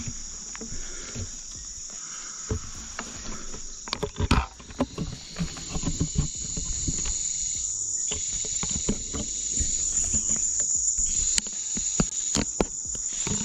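Steady high-pitched chorus of crickets, with irregular rustles and knocks on top, the loudest cluster about four seconds in.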